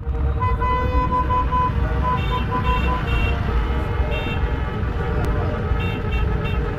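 Celebratory car horns honking in runs of short, rhythmic toots over a steady low rumble of engines in slow-moving traffic.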